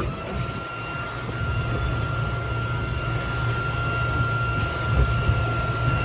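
Electric anchor windlass motor running with a steady high whine as it hauls in the anchor line, over the low drone of the boat's engines running in gear.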